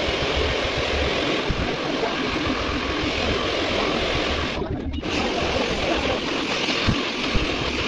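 Handheld hair dryer blowing a steady rush of air, briefly dropping out about five seconds in.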